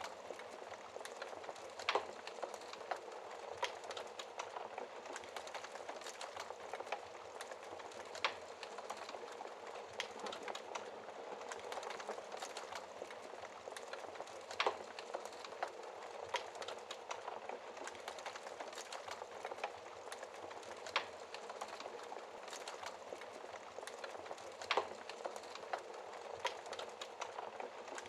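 Wood fire crackling steadily in a fireplace: a constant hiss of burning with many small ticks and a sharp, louder pop every few seconds.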